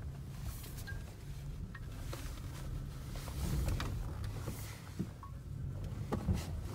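Pickup truck crawling slowly over a rocky trail, heard from inside the cab: a low, steady engine hum with a few scattered knocks as the truck works over the rocks.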